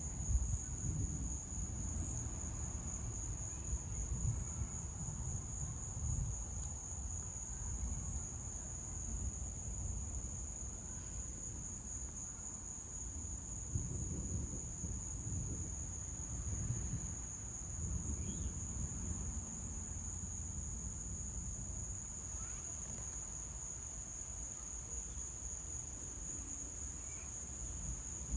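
A steady, high-pitched chorus of insects trilling without a break, over an uneven low rumbling noise.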